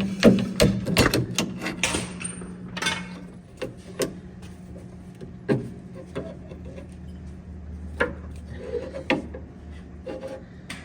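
Tools knocking and clanking against metal suspension parts of a bus: a quick run of sharp strikes in the first two seconds, then single knocks every second or two. A steady low hum runs underneath.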